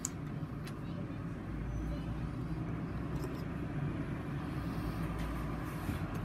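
Faint clicks of small plastic Lego bricks being handled and pressed together, over a steady low rumble.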